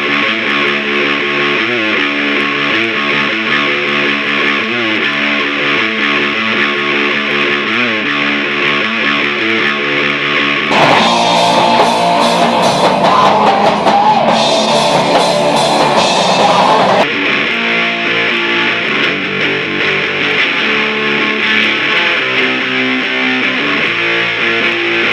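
Distorted electric guitar playing a grunge riff tuned a whole step below standard, through a Sunn Beta Lead Combo amp simulation, with drums. It gets louder and brighter for about six seconds in the middle.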